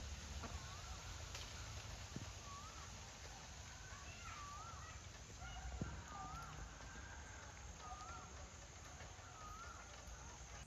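A bird calling over and over, short wavy whistled notes about once a second, over a steady rushing hiss.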